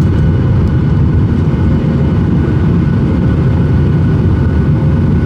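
Steady loud low rumble of an airliner in flight, heard inside the cabin: jet engine and airflow noise with a faint steady hum above it.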